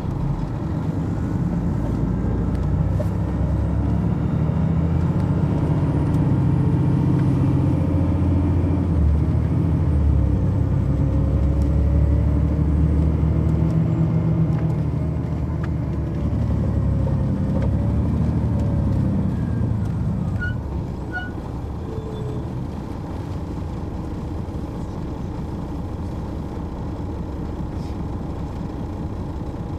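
Detroit Diesel Series 60 diesel engine of an MCI D4000 coach, heard from on board, running loud under load with its pitch rising and falling. About twenty seconds in it drops to a quieter, steady idle.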